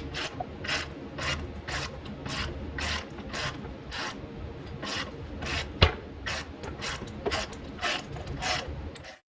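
Hand-worked ratcheting strokes under the car, about two a second, each a short rasp, with one sharp metallic knock just before six seconds in. The sound cuts off abruptly near the end.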